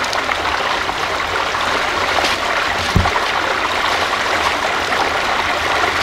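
Mountain stream running over rocks, a steady rush of water. A single dull thump about halfway through.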